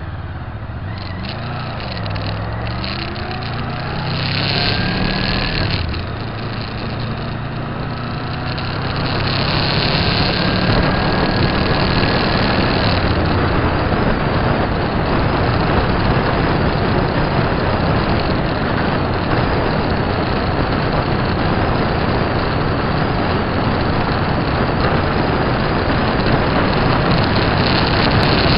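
Motorcycle engine pulling away, its pitch rising and falling through the gears over the first few seconds. It then settles into a steady rush of wind and engine noise at road speed.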